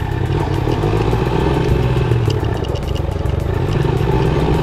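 Motorcycle engine running at low riding speed, its pitch swelling and easing a little, with scattered light clicking and rattling over the rough lane.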